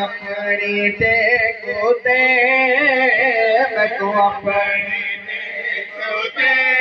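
A man singing a noha, a Shia lament, into a microphone: long, wavering melismatic lines held with few breaks.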